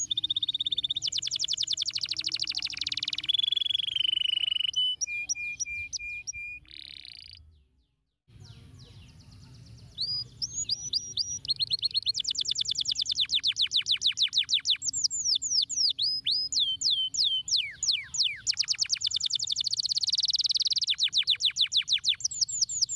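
Yellow domestic canary singing a long, high-pitched song of rapid trills and rolls of quickly repeated notes. The song cuts out for about a second roughly a third of the way through, then resumes.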